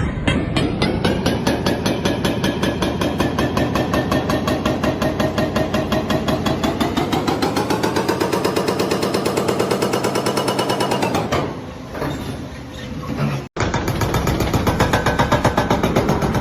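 JCB backhoe loader working: a rapid, even hammering over the running engine. The engine pitch rises around the middle, the sound falls away briefly about two-thirds in, cuts out for an instant, then resumes.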